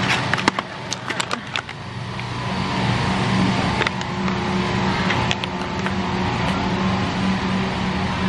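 Steady low hum and rumble of a busy warehouse store's aisles, with a run of sharp clicks and knocks in the first two seconds and a couple more midway.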